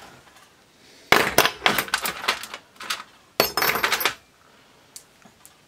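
Loose small metal sewing machine parts clinking and rattling against each other and the steel drawer as they are handled, in two clusters of sharp clinks about two seconds apart, with a few faint ticks near the end.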